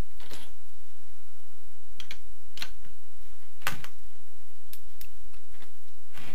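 About seven sharp metallic clicks and clacks at uneven intervals: a socket, extension bar and ratchet being handled and fitted onto a crankcase bolt.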